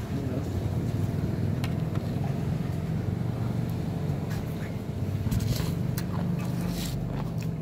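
An engine idling steadily, a low even hum, with a few light clicks over it.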